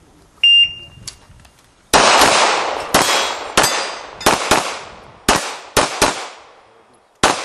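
Electronic shot-timer start beep, then a string of about nine gunshots over some five seconds, some fired in quick pairs, each with a ringing echo: a competitor shooting an IPSC stage.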